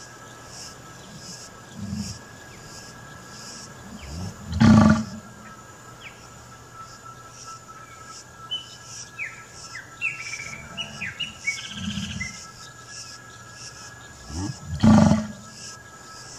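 Outdoor ambience of small birds chirping, with a faint high insect buzz pulsing about twice a second, broken by two loud, low calls about ten seconds apart.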